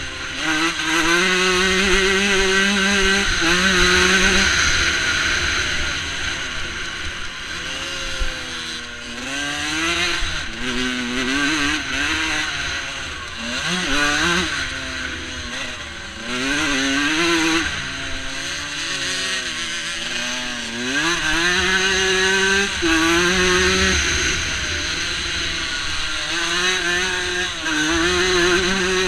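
125cc two-stroke motocross bike engine heard on board, revving up and dropping back over and over as the rider shifts gears and rolls off the throttle, held at high revs for a few seconds near the start and again later on. Wind buffets the microphone throughout.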